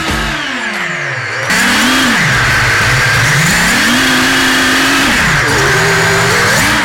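A motor revving up and down again and again, its pitch falling, rising, holding and falling. A loud rushing hiss joins in about a second and a half in.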